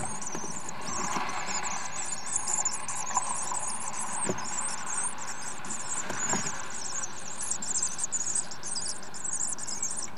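Common swift chicks twittering continuously in a high, rapid chatter inside the nest box, with two short knocks about four and six seconds in as the adult swift shuffles over the box floor.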